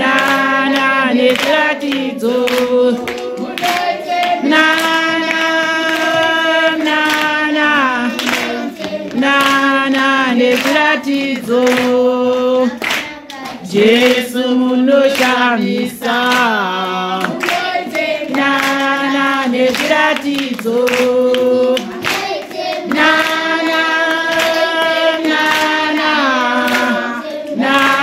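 A group of children singing a song together, with hand clapping to the beat. The singing runs in phrases of held notes with short breaks.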